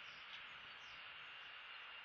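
Faint outdoor ambience: a steady hiss with a thin, high, steady tone and a couple of faint short chirps.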